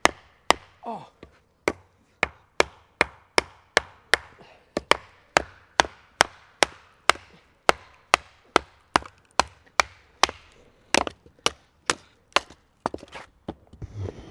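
A wooden baton striking the spine of a knife ground from an old file, driving it down through a log: sharp knocks in a steady rhythm of about two a second. This is hard batoning, a test of the file knife's toughness.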